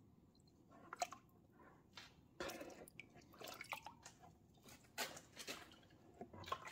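Water poured from a small rubber bucket into a rubber tub in short pours, splashes and drips, with a few light knocks of the containers. It is faint.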